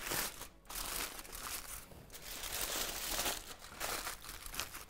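Aluminium foil being crumpled and folded by gloved hands in irregular crinkling rustles, sealing the foil tightly over rice and meat in a pot so it cooks in its own steam.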